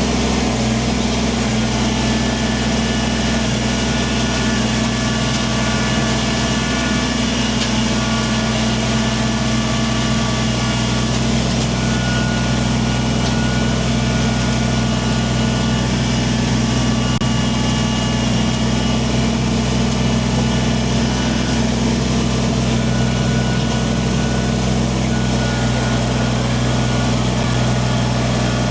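Kubota compact tractor's diesel engine running at a steady speed.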